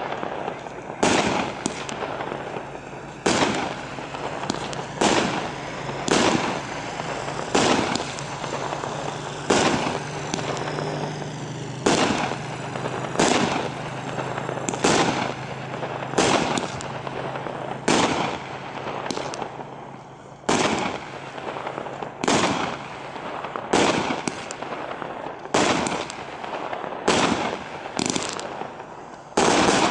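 A 25-shot fireworks cake firing shot after shot, gold palm shells bursting with coloured stars. A sharp report comes about every one to one and a half seconds, about twenty in all, with a steady hiss between them.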